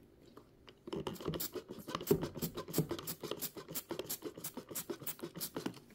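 Rapid scratching and scrubbing strokes, about four a second, against the sewing machine's body to work off stuck-on tape residue. They start about a second in.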